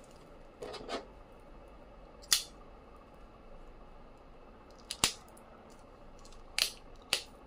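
Paper handling of a hardcover book and its paper dust jacket. There is a short double rustle about a second in, then four short, crisp crackles a second or two apart.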